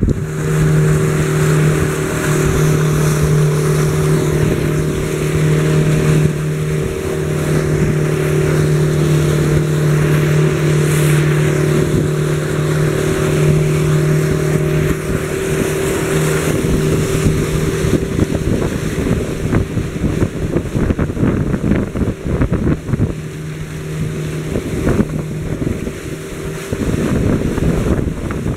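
Motorboat engine running steadily at speed, a constant low hum over the splashing rush of the wake, with wind buffeting the microphone.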